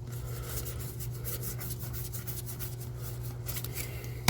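Trading cards sliding and rubbing against one another as they are flipped through by hand, in many quick faint strokes over a steady low hum. A single sharp knock right at the end.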